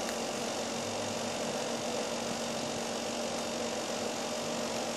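Steady background hum with an even hiss and no other events.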